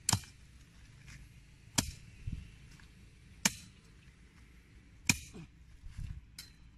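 A long-handled digging tool is driven down into hard, dry soil while a planting hole is dug, giving five sharp strikes about every one and a half seconds.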